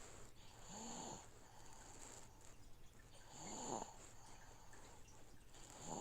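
Sleeping baby snoring softly, one snore about every three seconds, over the steady low hum of an aquarium filter.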